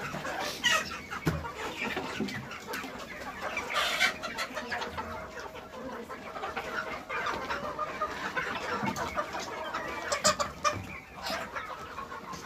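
A crowded flock of desi (local breed) chickens clucking and calling at once, many short calls overlapping throughout.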